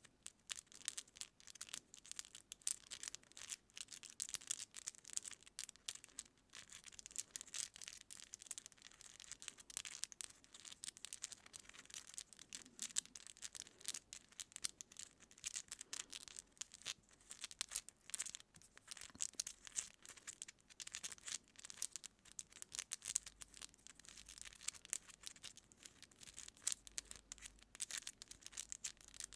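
Long acrylic nails picking and scratching through hair at the scalp: a dense, fine, close-miked crackle of strands rubbing and nail tips scratching, with two recordings of the same picking layered together.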